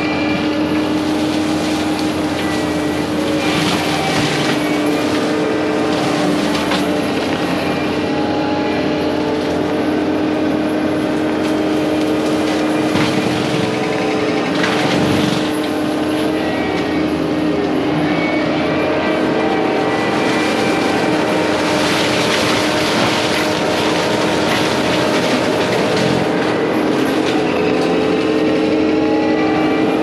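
Prinoth M450s-1600 forestry mulcher on a compact track loader running hard, a steady high whine over the machine's drone. Several times it breaks into louder, rougher grinding as the head chews into brush.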